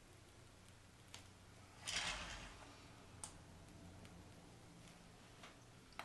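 Faint crinkling of a disposable plastic piping bag as buttercream is squeezed through it: one brief soft rustle about two seconds in and a few faint clicks, over a low electrical hum.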